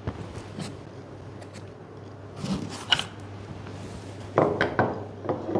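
Hard plastic scanner parts being handled and fitted together: scattered clicks and knocks, clustered about halfway through and again near the end, over a low steady hum.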